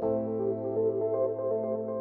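Ambient synthesizer music: held chords that change at the start and again at the end.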